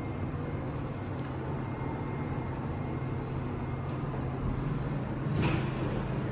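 Steady low hum of a busy indoor public space, with a brief rustle or whoosh about five and a half seconds in.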